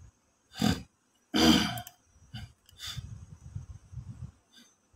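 A person clearing their throat twice, the second time louder and longer, followed by faint low rumbling.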